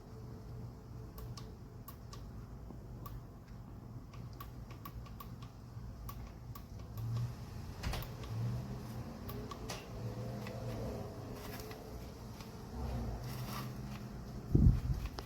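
Scattered small clicks and light handling noise over a low hum, with one loud thump near the end.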